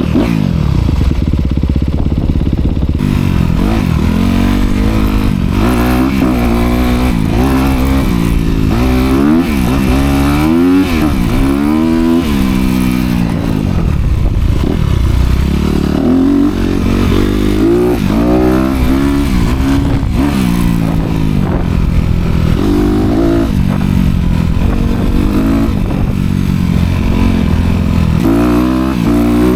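Honda CRF250R dirt bike's single-cylinder four-stroke engine with dual exhaust, revving up and down over and over as it is ridden, the pitch rising with each throttle blip and falling as it eases off.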